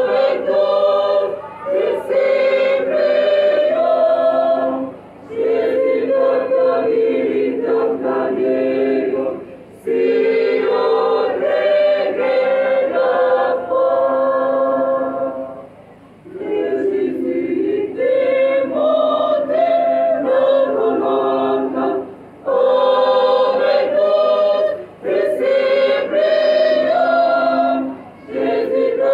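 Choir of mostly women's voices singing, in sung phrases of several seconds broken by short pauses for breath.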